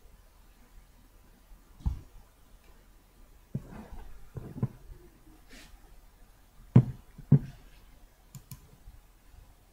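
A handful of separate knocks and clicks over a faint low hiss. The loudest are two sharp knocks about half a second apart, about two-thirds of the way through.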